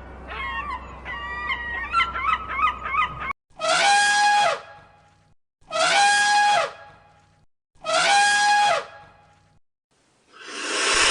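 Bird calls, likely domestic fowl: a run of short overlapping calls that glide in pitch, then three loud, identical drawn-out calls evenly spaced about two seconds apart.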